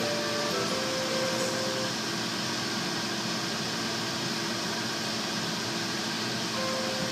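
Steady whirring machine noise with a low hum, heard from inside a car cabin in a car wash.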